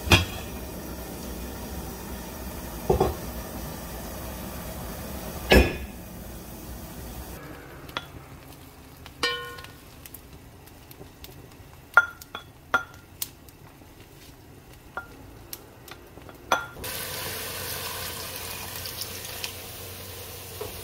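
The heavy lid of a black earthenware rice pot clanks three times. A rice paddle then scoops cooked rice, with scattered light clicks and taps against the bowl. Near the end a steady sizzle starts as rice-rinsing water goes into the hot pot onto the rice crust to make nurungji.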